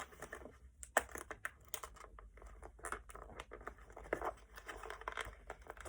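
Keyboard box packaging being handled and pried at: irregular taps, scrapes and crinkling of cardboard and plastic.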